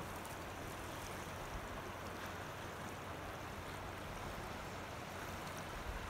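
Small waves lapping on a rocky shoreline: a steady wash of water with faint small splashes.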